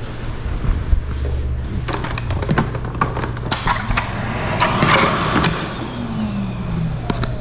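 A run of sharp clicks and knocks, with a noisy rattling stretch about five seconds in and a short falling creak near the end, over a steady low hum.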